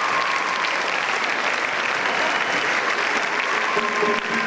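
Steady applause: a large crowd clapping together without a break.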